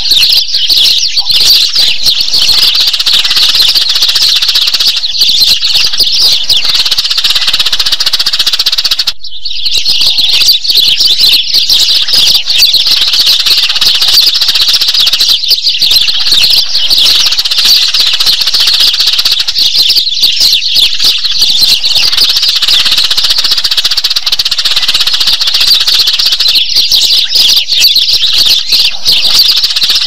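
Many sparrows chirping together in a dense, continuous chatter, with a brief break about nine seconds in. This is a flock call used as a lure to draw sparrows in.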